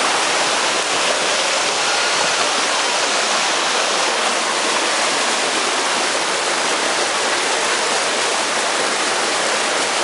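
Creek water rushing and splashing over boulders in a small cascade, a loud, steady rush with no letup.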